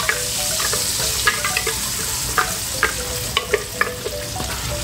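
Blended bean purée sizzling in hot oil in a frying pan, with a steady hiss and scattered sharp pops as the thick beans bubble and spit.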